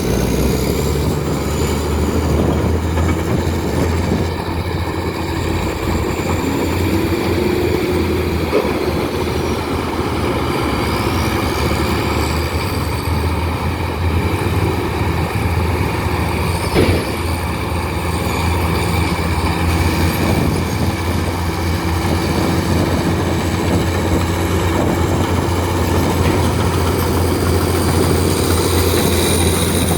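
Heavy diesel engine of an earth-moving machine running steadily under work, its pitch rising and falling a few times. A single sharp knock past the middle.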